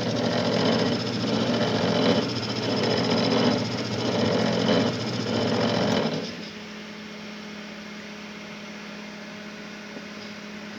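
Homemade coil-winding machine running with a loud, rough strange noise that swells about every 1.3 seconds, then stopping about six seconds in and leaving a steady low hum. The owner finds its mandrel sitting slightly crooked.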